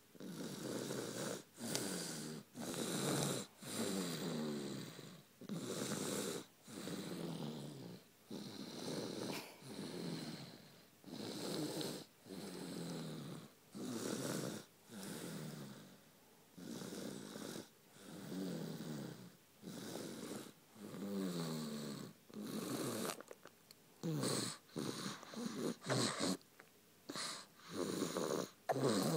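Loud snoring with a rattling buzz on each breath, repeating about once a second. Near the end the breaths come shorter and quicker, with a few clicks.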